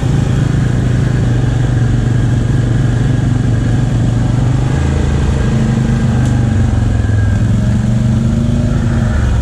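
ATV engine running at low trail speed, a steady drone whose pitch shifts up and down a little with the throttle from about halfway through.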